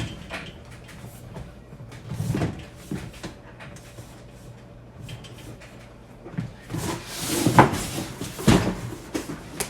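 Knocks and clunks of a light-stand tripod's parts being handled and fitted together: a few scattered knocks, then a cluster of louder clunks about seven to nine seconds in.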